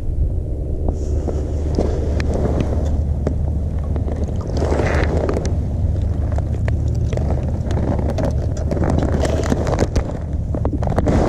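Footsteps crunching on snow-covered ice and sharp handling clicks at a tip-up hole, over a steady low rumble on a body-worn camera's microphone.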